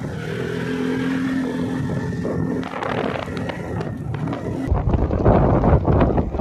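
ATV engine running at a steady pitch while being ridden. About two-thirds of the way through, the sound changes abruptly to heavy wind buffeting the microphone with a loud low rumble.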